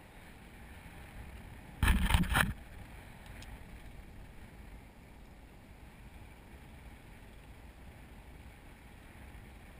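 Steady low wind rush on a harness-mounted action camera's microphone high in the air under a parasail. About two seconds in comes a loud, rough burst of buffeting that lasts under a second.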